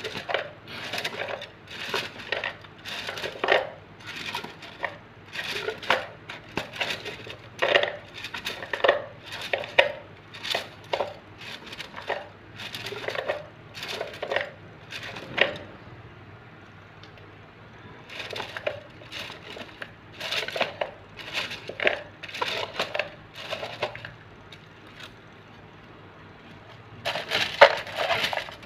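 A bundle of thin wooden sticks in a holder, rattling and clicking as a hand works through them. The clatter comes in irregular clusters, with a couple of quieter gaps in the middle, and picks up again near the end.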